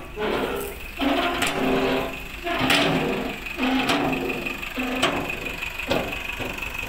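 Tipper truck's diesel engine running with its pitch going up and down, with about five sharp metallic knocks roughly a second apart. A steady high whine joins in about midway.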